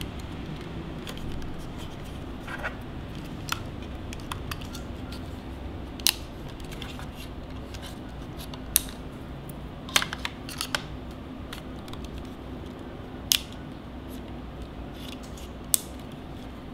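Small hard-plastic clicks and taps, irregular and a few seconds apart, as the Andoer W49 LED video light's body and fittings are handled, over a faint steady hum.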